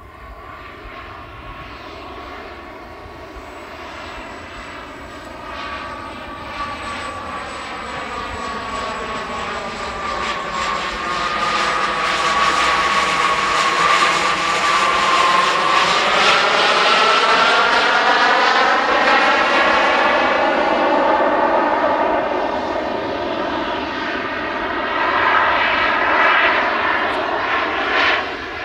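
Four JetsMunt 166 model jet turbines on a 1/13-scale RC Airbus A380 running in flight: a steady turbine whine over a rushing jet noise that grows louder as the model comes past, peaking around the middle. The rush sweeps down and back up in tone as it passes, then eases off a little toward the end.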